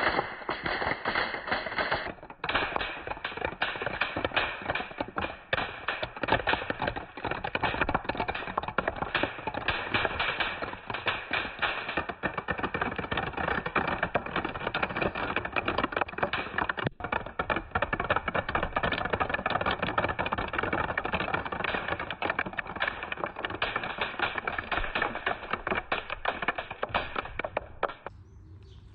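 Many marbles rolling and clattering down a marble run track, a dense continuous rattle of rapid clicks that stops near the end.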